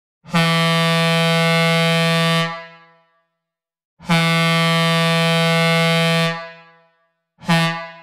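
Synthesized recreation of a Leslie A-200 single-note train air horn, sounding two long blasts and then a short one, each with an echoing tail. This is the opening of the long-long-short-long grade-crossing signal.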